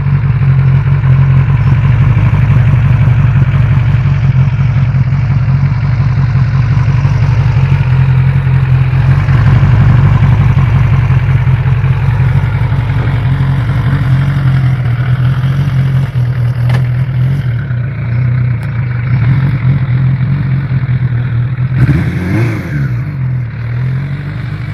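Suzuki GSX sport bike's inline-four engine held at high revs during a burnout, the rear tyre spinning on the tarmac. The engine note stays steady, then wobbles down and back up about three seconds before the end.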